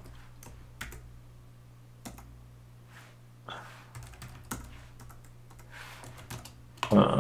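Typing on a computer keyboard: scattered, unhurried keystrokes over a faint steady low hum. A short, louder vocal sound comes right at the end.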